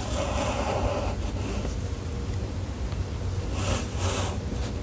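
Sharpie felt-tip marker drawing strokes on paper, the longest stroke in the first second and another about four seconds in, over a steady low rumble.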